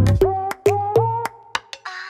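Background electronic music: short plucked notes in a quick rhythm over a deep bass beat, with a brief swish near the end.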